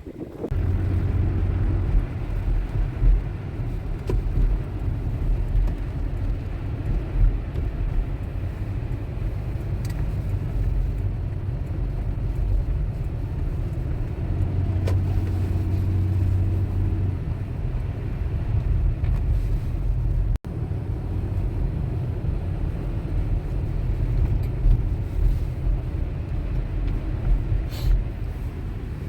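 Steady low rumble of a car driving, with engine and road noise. It breaks off for an instant about twenty seconds in.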